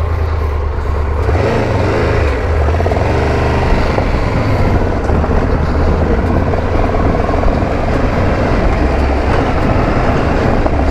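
Triumph Tiger's three-cylinder engine running at low speed on a dirt track, a steady low rumble. The revs rise and fall a couple of times about two to four seconds in.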